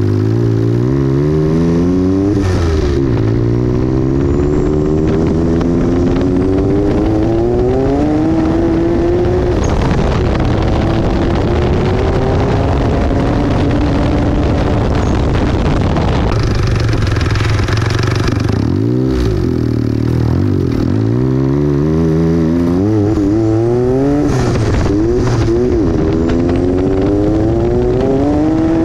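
Turbocharged off-road buggy engine accelerating hard through the gears at 15 psi of boost. Its pitch climbs, drops back at each shift and climbs again several times, with a brief lull past the midpoint before it pulls up again.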